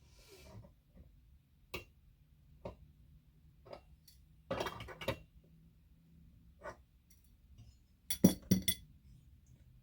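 Small metal parts and tools clicking and clinking as they are handled on a workbench: scattered single clicks, a short cluster near the middle, and a louder pair of clinks near the end.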